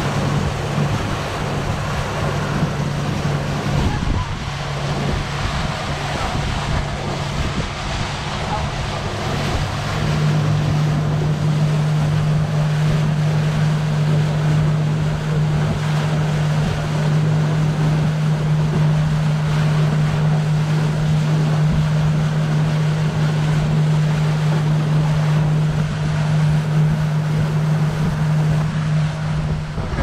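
Engine of a motorized wooden river boat running steadily under way, a constant low hum that grows louder about ten seconds in, with wind buffeting the microphone and water rushing past the hull.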